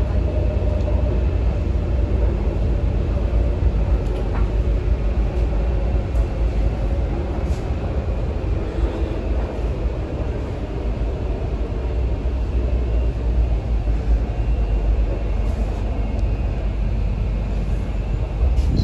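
Steady running noise of an MTR C-train metro car heard from inside the carriage: a deep, even rumble of wheels on rail, with a faint whine near the start that fades away.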